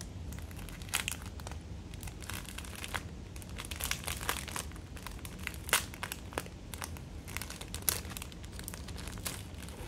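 Clear plastic bag crinkling and crackling as fingers pick and pull at it to tear it open, in irregular crackles with a few sharper ones, the loudest a little before six seconds and near eight seconds.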